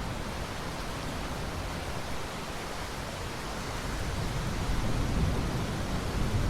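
Steady heavy rain hiss, with a low rumble of thunder building over the last couple of seconds.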